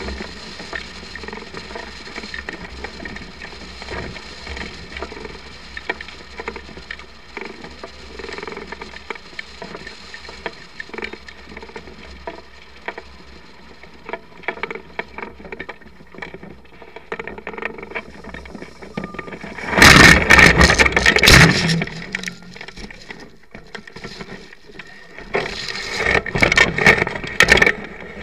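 Air rushing over the microphone of a camera mounted on a hang glider during a low glide over a meadow. About twenty seconds in and again near the end come loud scraping and buffeting bursts as the glider comes down in the grass.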